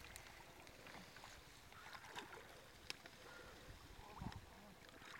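Faint sloshing and trickling of shallow water stirred by a fishing net dragged through a weedy channel, with a few soft ticks.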